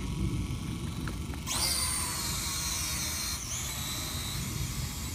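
Holy Stone F181G quadcopter's small electric motors and propellers spinning up sharply about a second and a half in, a high multi-toned whine as it lifts off and flies, dipping briefly in pitch and recovering, over a steady low rumble.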